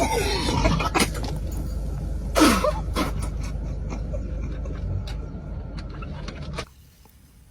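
A person lets out one loud burp about two and a half seconds in, its pitch falling, brought on by gulping carbonated Sprite. A steady low rumble runs behind it and cuts off suddenly near the end.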